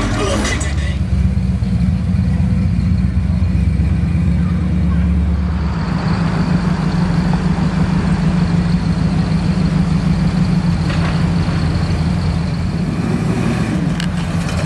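Classic cars' engines running with a steady low exhaust rumble as they cruise slowly past one after another.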